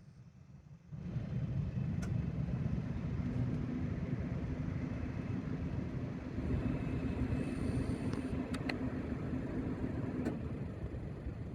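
Small propeller airplane's engine, loud, starting suddenly about a second in, with a steady droning note through the middle that drops away near the end.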